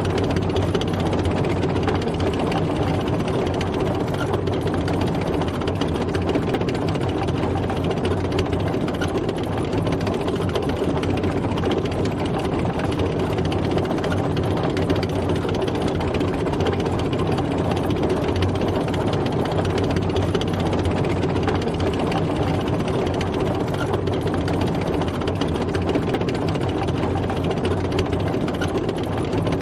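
Tank on the move: its heavy engine running steadily at an even pitch, with a dense, continuous rattle over it.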